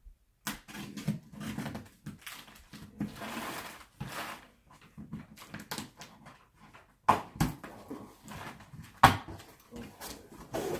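A cardboard box being slit open with a knife, its flaps pulled open and its contents rummaged: scraping, rustling and clicks, with a few sharp knocks about seven seconds in and again near nine.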